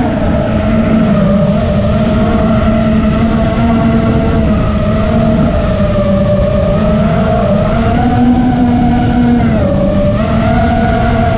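FPV quadcopter's electric motors and propellers whining steadily, the pitch drifting up and down with the throttle and dipping briefly near the end, over rough wind buffeting.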